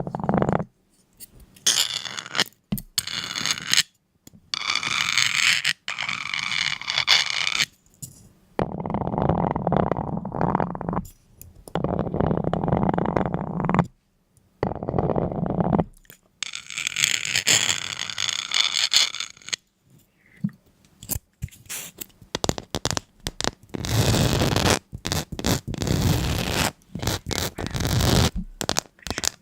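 Repeated strokes of scraping and rubbing, each lasting up to a couple of seconds with short pauses between. Some strokes are low and dull, others bright and hissy. They come faster and shorter near the end.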